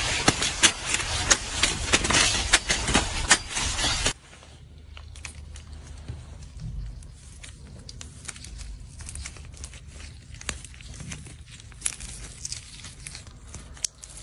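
Loud rustling with sharp snaps as corn ears are cut by hand with a cleaver, stopping abruptly about four seconds in. Then quieter soft crackling and tearing as gloved fingers peel thin, brittle caramel shells off pistachio-filled sweets.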